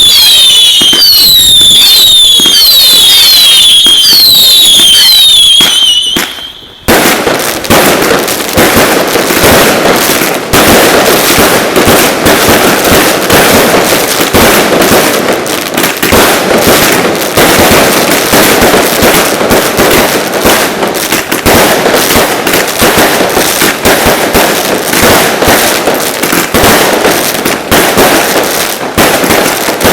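Ground fireworks: a rapid series of shrill whistles, each dropping in pitch, running about two a second. After a short break at around six seconds, a dense crackling barrage of firecracker bangs starts and carries on to the end.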